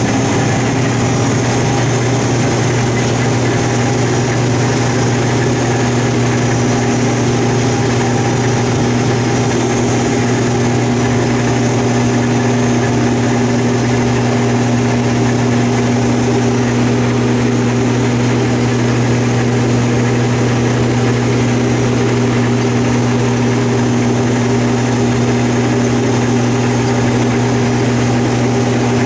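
Combine harvester running steadily at working speed: a constant low engine drone with a steady hum and mechanical noise over it, unchanging throughout.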